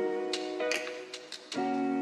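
Background music: acoustic guitar chords strummed, a new chord about every second and a half.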